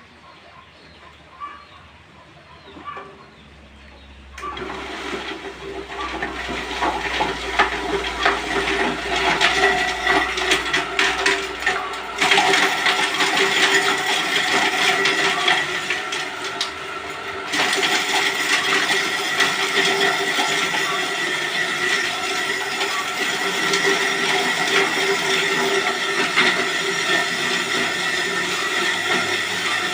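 Electric forage chopper for livestock feed starting about four seconds in and running steadily with a whine and a rough churning noise. It gets louder around twelve seconds and again a few seconds later.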